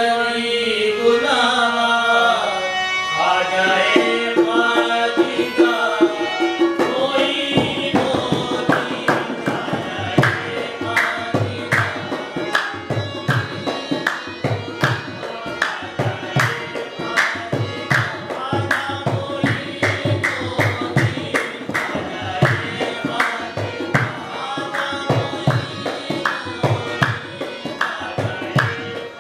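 Qawwali ensemble: sung voices over a harmonium. About seven seconds in, a steady fast rhythm of hand claps and drum beats comes in and carries on with the harmonium beneath it.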